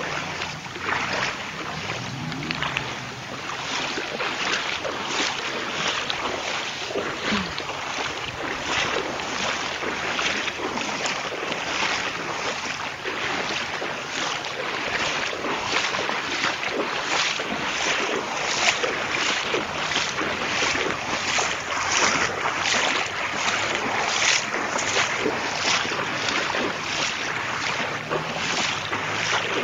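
Footsteps wading through shallow floodwater, a splash roughly twice a second over a steady hiss of water and wind on the microphone.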